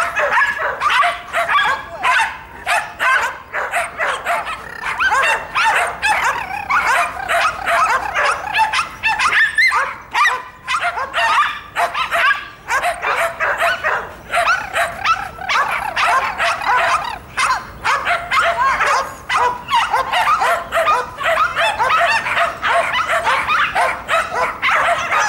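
A dog barking and yipping almost nonstop, several sharp, high barks a second, while it runs an agility course beside its handler.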